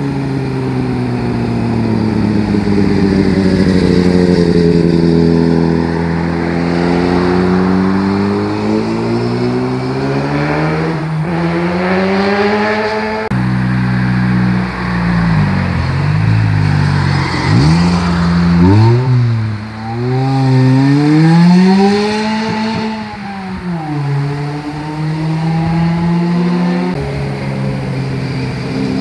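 Motorcycle engines passing one after another, their revs rising and falling as they shift gears through the bends. There is an abrupt cut about halfway through, and the second half has sharper dips and rises in pitch.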